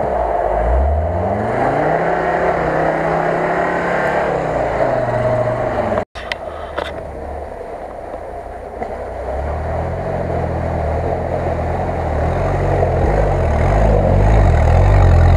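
UAZ off-road 4x4 engines revving as they drive through deep mud and water, the pitch rising and falling. After a cut about six seconds in, a second UAZ's engine climbs in revs and grows louder, loudest near the end.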